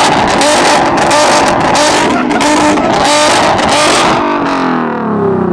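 Car engine held against a two-step rev limiter, its exhaust popping and banging rapidly as the limiter cuts in and out. After about four seconds the throttle is released and the revs fall away.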